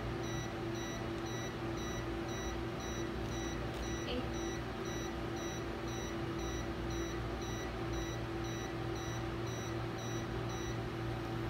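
Endovenous laser generator beeping steadily while it fires, about two short high beeps a second over a low hum, stopping shortly before the end.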